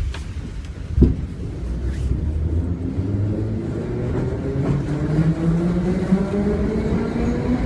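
Metro train pulling away: a thump about a second in, then the traction motors' whine climbing steadily in pitch over a low rumble as the train accelerates.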